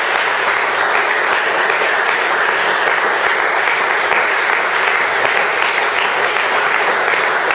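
Congregation applauding: steady, dense clapping with no break.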